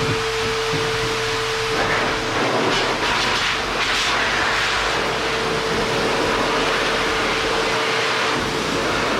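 Adam's Air Cannon car dryer blower running, with a steady whine under loud rushing air from the hose. The air noise swells a couple of times in the middle, and the whine drops away near the end.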